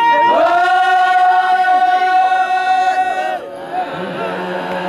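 Maasai men singing together a cappella, in chant style. A high voice holds one long note from just after the start until about three and a half seconds in, then the singing drops quieter.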